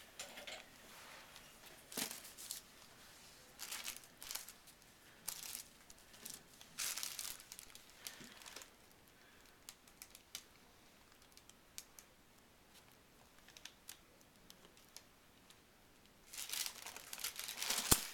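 Scattered light clicks and rustling of hand tools and metal hardware as the nuts and lock washers of an external fixator on an arm are undone, with a longer patch of rustling near the end.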